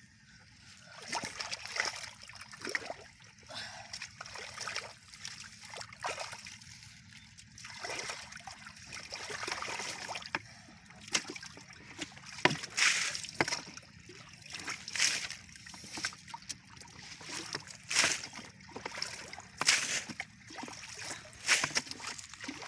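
Shallow muddy water splashing and sloshing as hands grope through it, in a run of irregular splashes that grows busier after about ten seconds.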